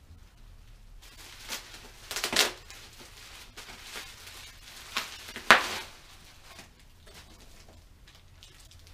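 Plastic bubble wrap crinkling in several short bursts as it is pulled off a small box, the sharpest about five and a half seconds in.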